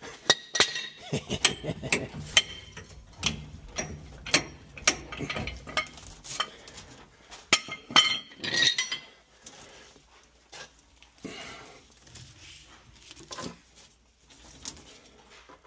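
Irregular metal clinks and knocks of a pipe wrench and steel pipe fittings being worked loose and handled. The sounds come thick and fast for the first nine seconds or so, then grow sparser.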